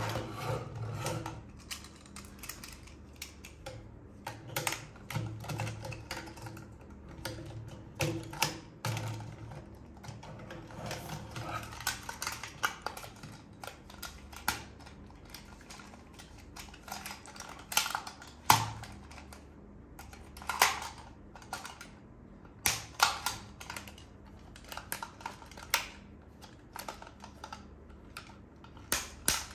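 Toy packaging and plastic toy parts being handled and unpacked by hand: irregular sharp clicks, taps and rustles, some close together and some spaced out.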